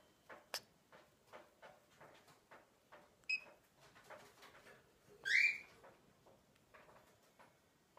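Rainbow lorikeet giving a short high chirp about three seconds in and a louder, rising squeaky call just past halfway. Under the calls runs a string of soft ticks and rustles, several a second, as it rubs its head against a person's face.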